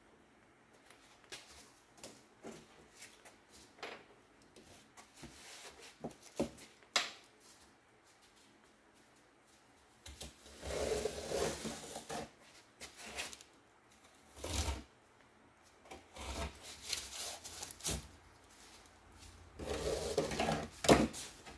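Irregular handling noises at a workbench: scattered light clicks and knocks through the first half, then several louder bursts of rubbing and scraping from about halfway and again near the end.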